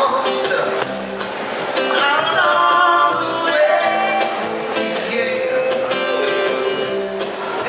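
Live pop music: a guitar playing under a voice singing long held, gliding notes.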